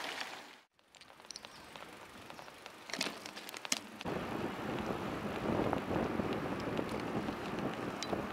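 Bicycle riding along an asphalt path: steady tyre-rolling and wind noise on the rider's camera, louder from about four seconds in. A few sharp clicks come just before that.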